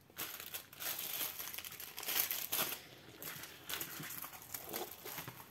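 Clear plastic crinkling and rustling in irregular bursts as a diamond-painting canvas under its protective plastic film is handled and smoothed flat.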